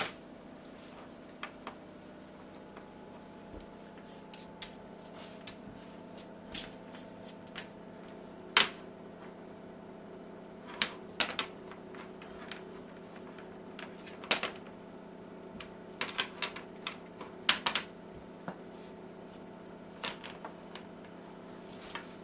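Irregular clicks and knocks, some in quick clusters of two or three, as a Shiba Inu puppy rolls about playing with a chew bone on a wooden floor: the bone and its claws tapping the boards. Under them runs a steady faint hum.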